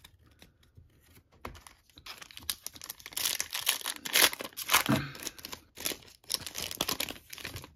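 Foil wrapper of a Topps Chrome baseball card pack crinkling and tearing as it is opened by hand, in a run of sharp crackles from about two seconds in until near the end.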